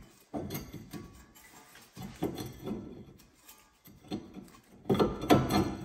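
Cross-drilled front brake rotor of a Porsche Cayman S scraping and clunking against the hub and wheel studs as it is worked off by hand, in several irregular bursts. The loudest comes about five seconds in.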